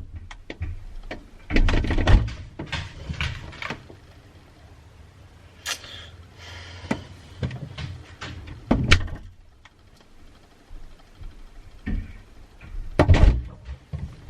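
Irregular knocks and thuds with some rustling, as of a door and objects being handled in a small room. The loudest clusters come about two seconds in, about nine seconds in and near the end.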